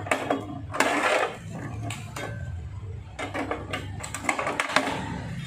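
Pliers biting into and tearing rusted steel sheet from a 1977 Vespa scooter's floor frame: a run of sharp metallic clicks and clinks, with a rough scraping tear about a second in and a quick cluster of clicks near the end.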